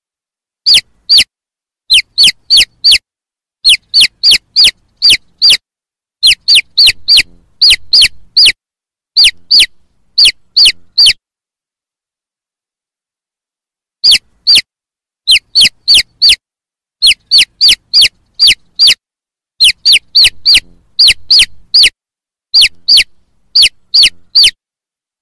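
Chicks peeping: loud, sharp, high peeps that fall in pitch, given in quick runs of two to four, with a pause of about three seconds midway.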